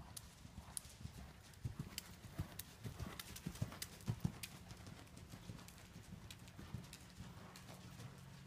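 Hoofbeats of a cantering horse on the arena's dirt footing, loudest about four seconds in as it passes close and then smaller as it moves away.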